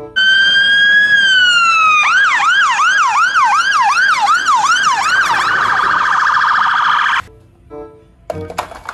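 Fire engine's electronic siren: a slow wail rising then falling, then a fast yelp of repeated up-and-down sweeps about two and a half a second, then a rapid warble, cutting off suddenly about seven seconds in.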